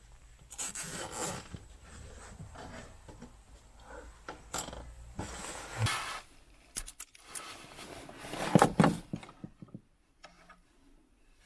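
Hands and cable rubbing and scraping as an electrical wire is handled and worked with pliers, with a few sharp clicks and a louder crackling scrape late on.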